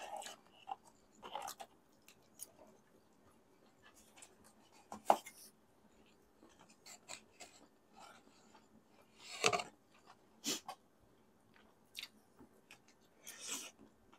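Close-miked eating sounds: irregular mouth clicks, smacks and short slurps as noodles are chewed, with rustling of a paper food box near the start. The loudest is a sharp click about five seconds in, and there are longer noisy bursts about halfway through and near the end.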